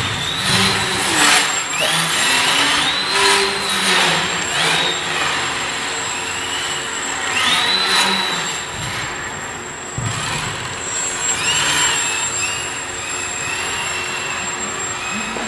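Homemade CNC machine running: a stepper-motor whine that rises in pitch, holds and falls again as the axes speed up and slow down, repeated several times over a steady mechanical hiss and a constant high whine.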